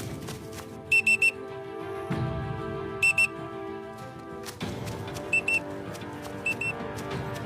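Background music: sustained tones with short, high electronic beeps in quick pairs and threes, a group about every two seconds.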